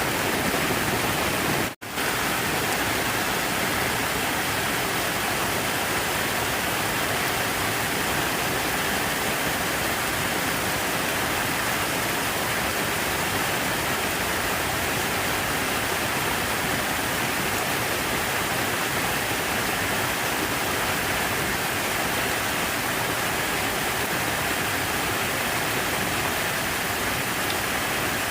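Rushing water, a steady, even hiss with no break in its texture, cut out for a split second about two seconds in.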